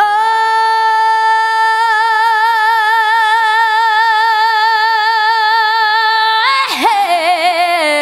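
Sped-up a cappella female lead vocal with no backing, holding one long high note that starts plain and takes on a wide vibrato after about two seconds. Near the end it swoops through a quick run into a second wavering note.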